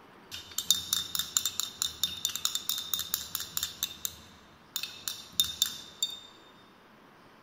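A glass stirring rod clinks rapidly against the inside of a glass conical flask as it stirs hot water to dissolve acetanilide. Each click rings with a bright glassy tone. The clicks come in two quick runs with a short break about four seconds in, and stop about six seconds in.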